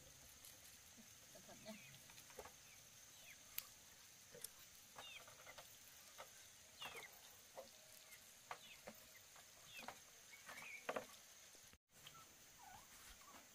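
Faint, scattered peeping of chickens: short, high chirps that fall in pitch, a few every second. The sound drops out for an instant near the end.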